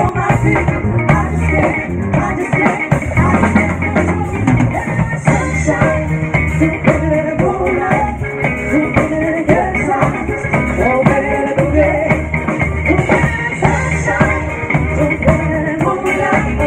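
Live band music with a drum kit beat and singing, heard through a phone's microphone.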